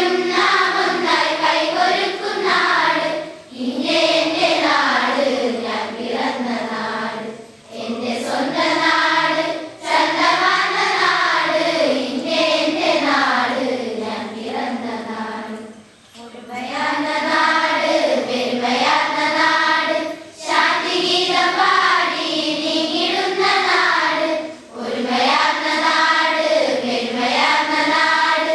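A large group of schoolgirls singing a Malayalam morning assembly song together, in long phrases with brief pauses for breath between them.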